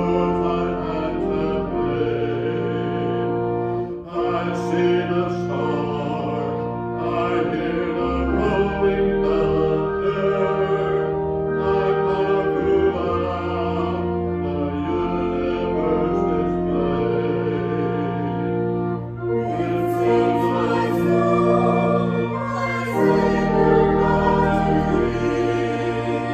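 Slow sacred music of long held chords, with singing.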